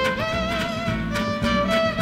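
Gypsy jazz band playing live: a violin carries the melody over acoustic guitars strumming a steady rhythm and an upright double bass.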